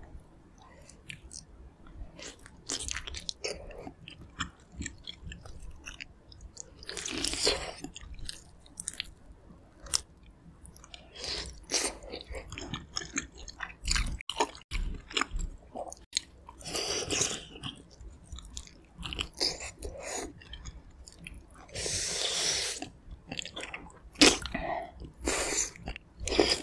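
Close-miked eating of pork-bone gamjatang: wet chewing of soft stewed meat, broken by several longer slurping bursts of about a second each and short clicks of metal utensils.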